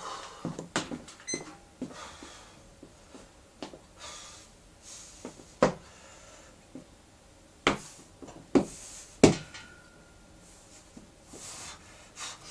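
A few sharp metallic knocks as a loaded barbell with iron plates shifts on a steel power rack while it is gripped and taken onto the back. The last knock is the loudest and leaves a short ring.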